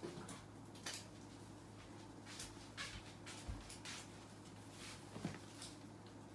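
A goldendoodle's hind paw sliding and scrabbling on a slippery hardwood floor: several faint, short scrapes and a couple of soft thumps, over a steady low hum.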